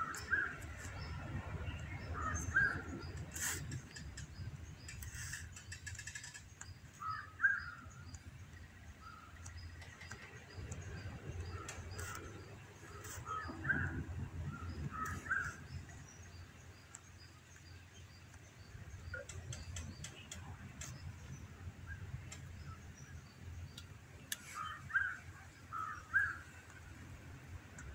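Birds calling in short clusters of notes every few seconds, over a low steady rumble.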